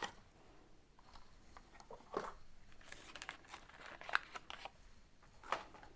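Faint crinkling, rustling and small clicks of packaging being handled and opened, with a few louder rustles about two, four and five and a half seconds in.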